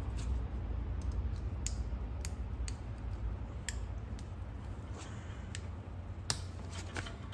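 Small metal clicks and taps, spaced irregularly, as a wrist-pin retaining clip is worked into its groove in a piston, over a low steady hum.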